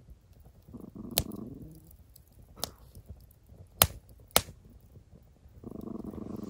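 A dog growling low in short spells, about a second in and again near the end, at something it is staring at in the dark. Sharp pops from the crackling campfire come four times.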